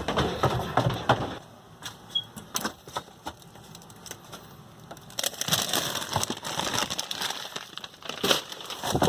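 Handling noise: crackling rustles and scattered sharp clicks and knocks, coming in bunches with quieter gaps between.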